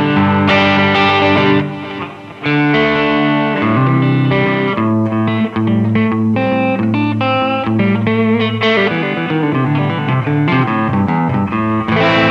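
2020 Epiphone Les Paul Custom electric guitar played clean on its rhythm pickup through an amplifier. Strummed chords break off briefly about two seconds in, then come a held low note and single-note runs moving up and down.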